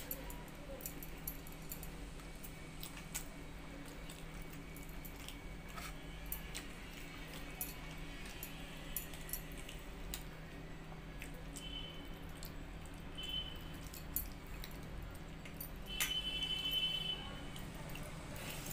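Bangles clinking and jingling on a wrist as a hand scoops watery rice from a steel bowl, in many small clicks with a few short rings. A louder run of ringing clinks comes near the end. A steady low hum sits underneath.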